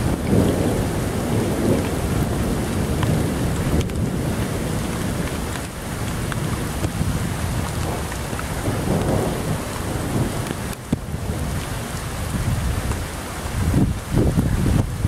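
Thunderstorm: low rolling thunder over steady rain, the rumble swelling at the start, again about nine seconds in, and near the end.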